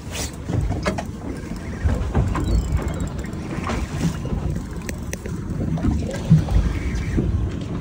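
Wind on the microphone and water against the hull of a small fishing boat at sea, with scattered light knocks and clicks.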